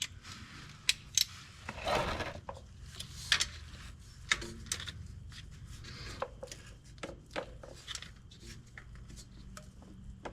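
Hand tools and metal parts being handled during a starter replacement: scattered irregular clicks, clinks and short scrapes, over a faint steady low hum.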